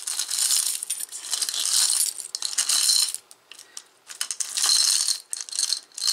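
Beads, chains and metal costume jewelry rattling and clinking against a glass jar as a hand rummages through it. The clatter comes in bursts, with a short pause about three seconds in.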